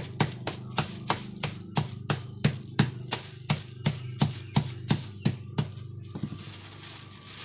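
Stone pestle pounding a cake of palm jaggery wrapped in a plastic bag on a concrete floor to break it up: sharp knocks about three a second, stopping near the end.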